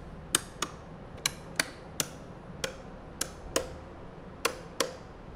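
A row of old-style brass light switches being flipped one after another: about ten sharp clicks, mostly in quick pairs as each switch is turned on and then off.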